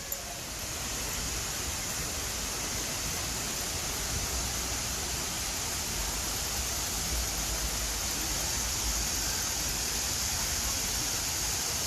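Steady rushing of a man-made waterfall, an even noise of falling water that grows slightly louder about a second in.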